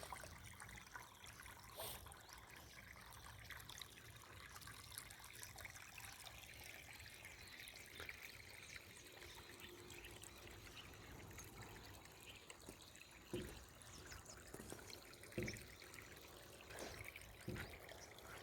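Faint trickle of water running out of an irrigation pipe into garlic beds, with a few soft knocks in the second half.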